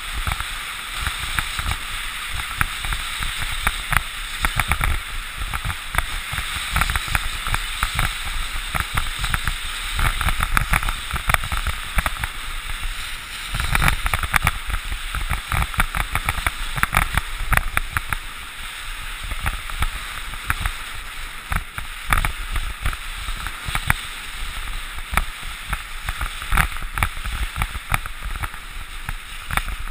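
Wind rushing and buffeting over a GoPro camera's microphone during a downhill ski run, with skis hissing and scraping over groomed snow. An uneven, gusty rush broken by frequent small knocks.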